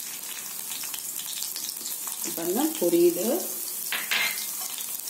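Peeled garlic cloves frying in hot sesame oil in an iron kadai: a steady high sizzling hiss, with a brief louder crackle about four seconds in.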